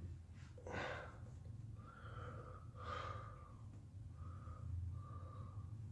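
Faint breathing through the nose, close to the microphone, with two clear exhales: one about a second in and one about three seconds in.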